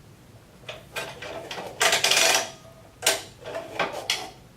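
Metal tube of an inversion table's adjustable boom being slid in its sleeve after its spring-loaded locking button is pressed down, giving a series of short metallic scrapes and clatters, the loudest about two seconds in.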